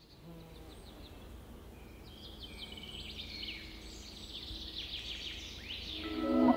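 Birds chirping: a stream of short, quick falling notes that gets busier and louder. Music fades in near the end.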